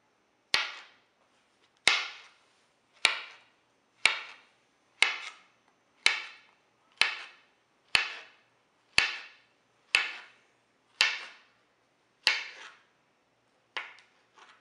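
Kitchen knife slicing a ripe plantain into rounds, the blade knocking sharply onto a clear hard cutting board about once a second, each knock ringing briefly.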